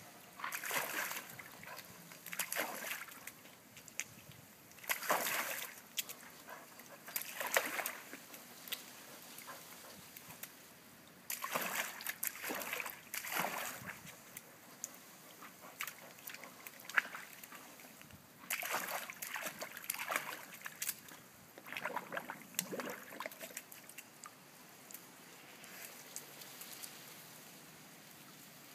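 Swimming-pool water splashing and sloshing as a Weimaraner dog works at it from the edge to fish out a frisbee. The splashing comes in irregular bursts a second or so long, and dies away near the end.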